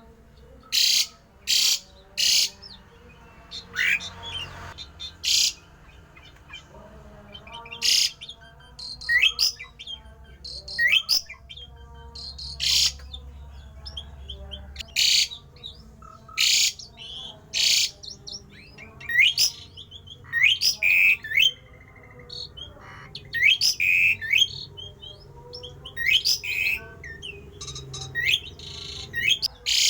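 Asian pied starling (jalak uren) calling: a run of loud, harsh short notes about every second or two, mixed with quick rising whistles.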